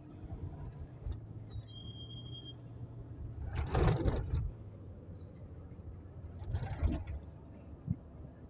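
Steady engine and road hum inside a moving car's cabin, with two louder rushing bursts of noise about four and seven seconds in.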